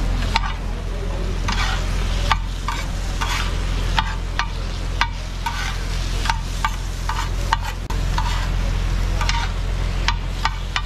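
Metal spatulas clinking and scraping on a large flat griddle as chicken pieces are chopped and tossed, in irregular sharp clinks about one or two a second, over a steady sizzle of frying.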